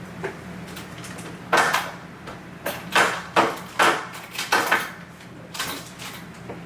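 Hard household objects being banged deliberately: about ten loud clattering knocks in quick, uneven succession, starting about a second and a half in and stopping near the end.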